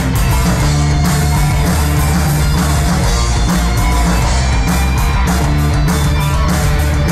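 Live heavy rock band playing loud: distorted electric guitars, bass and drums with regular cymbal hits.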